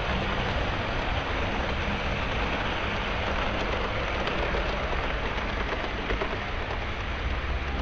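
Model train running along its layout track: a steady rolling rumble and hiss with no distinct clicks.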